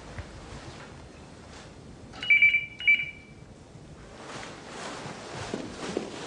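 Telephone ringing: one double ring, two short, bright electronic rings in quick succession about two seconds in. Soft footsteps follow.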